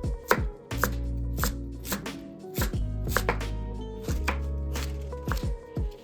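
A knife chopping vegetables on a cutting board in sharp, separate cuts, about one to two a second, over background music with deep, falling bass notes.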